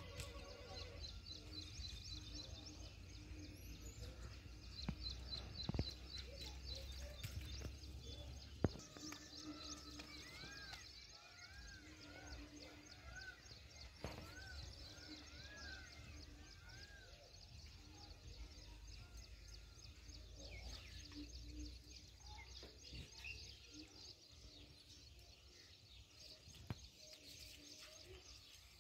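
Faint outdoor ambience of birds chirping, with a run of repeated rising-and-falling calls in the middle and a few sharp knocks. A low rumble of wind on the microphone runs through the first few seconds.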